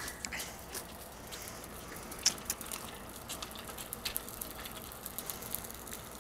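Footsteps on dry leaves and wood chips: an irregular, fairly faint crackle of small crunches, one sharper crunch a little over two seconds in.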